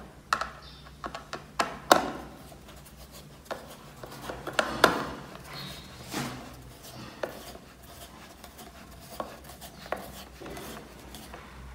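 A hand screwdriver turning the screw at the base of a plastic ceiling-fan speed controller's cover, fastening it shut: irregular clicks and short scrapes of the blade in the screw head and against the plastic. The loudest come about two and five seconds in, and they grow sparser and fainter in the second half.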